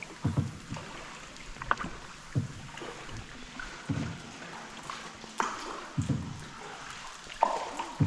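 Paddle strokes of a small boat on the river water inside a limestone cave, a low splash about every two seconds, with a few sharp clicks between the strokes.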